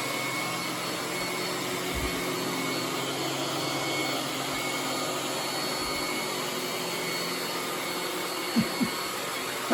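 iRobot Roomba S9+ robot vacuum running steadily, an even motor-and-suction noise with faint steady tones in it. Two brief thumps come near the end.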